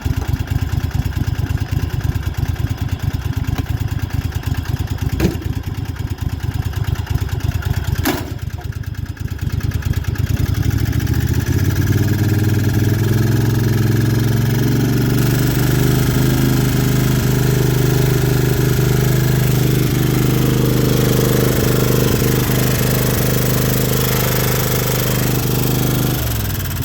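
Riding lawnmower's engine running roughly at low speed with two brief clicks, then throttled up about ten seconds in and held at a steady higher speed, dropping back just before the end.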